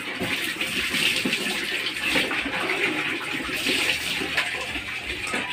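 Water poured from a plastic dipper over a dog, splashing off its coat onto a tiled floor in uneven surges.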